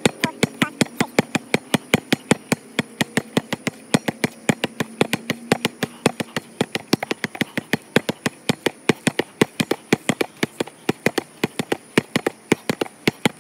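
Basketball dribbled hard on a concrete court: a fast, steady run of sharp bounces, about four a second, from pound and crossover dribbles.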